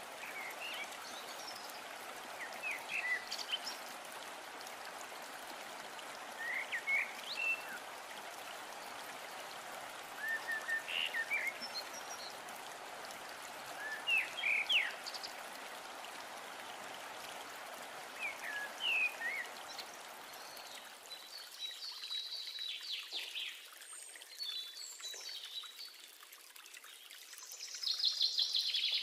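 Maggi noodles sizzling in a non-stick pan as they are stirred, with short high squeaks about every four seconds. The sizzle dies away about three quarters of the way through, and louder scraping follows near the end.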